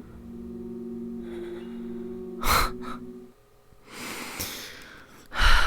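A woman's sharp, gasping breaths, three of them, the last the loudest, as she chokes up on the verge of crying. Under the first half runs a low steady drone that stops about halfway through.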